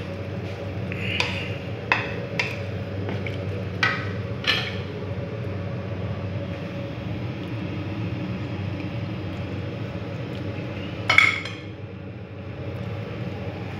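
Wooden spatula stirring a cream sauce in a non-stick frying pan: a few sharp clinks and knocks against the pan in the first five seconds and a louder one about eleven seconds in, over a steady low hum.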